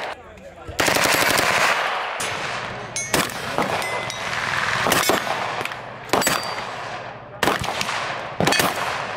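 A suppressed AR-style rifle firing repeatedly: a quick string of shots about a second in, then single and paired shots roughly a second apart, each with a ringing trail.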